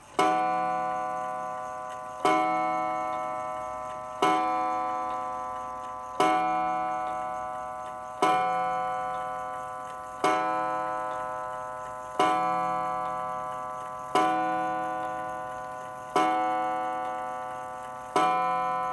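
Mantel clock's hammer striking its metal gong rod, ten evenly spaced strokes about two seconds apart, each ringing and slowly dying away. The count of strokes does not match the time: the clock strikes out of step with the hour it should, a sign that it needs a service.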